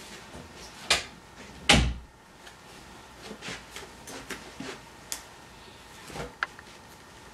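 Household handling noises: two sharp knocks about one and two seconds in, the second the loudest with a dull thud, then lighter clicks and rustles, and a soft thud near the end as a suit jacket is laid down on a bed.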